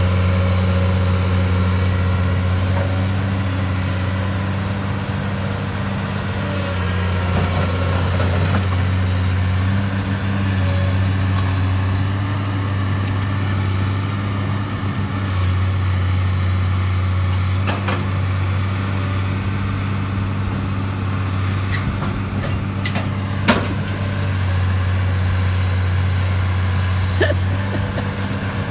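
Heavy diesel engines of a Komatsu hydraulic excavator and a farm tractor running steadily with a deep, even hum. A few sharp knocks come in the second half, one of them louder than the rest.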